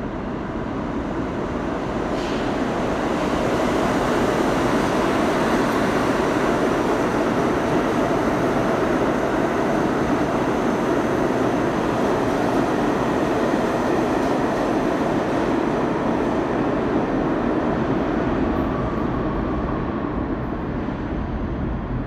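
New York City subway train running through the station on a far track without stopping. A steady rumble builds over the first few seconds, stays loud, and fades near the end as the train clears.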